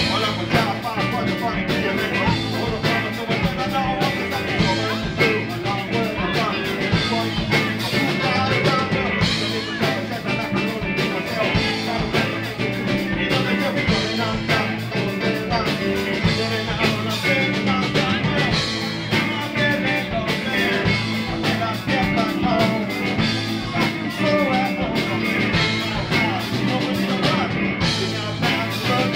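Live band playing amplified in a small room: electric guitar and drum kit, with a man singing into a microphone.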